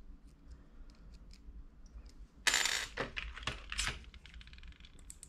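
Small metal screwdriver bits clicking and rattling in a plastic bit case as they are sorted through. Faint scattered clicks first, then a louder, dense run of rattling about halfway in.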